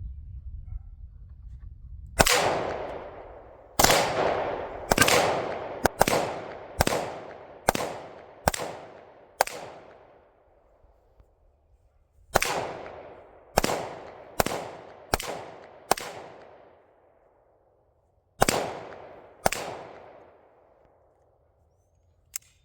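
Gunshots from a firearm fired about once a second, in three strings of roughly eight, five and two shots, each shot ringing out in a fading echo.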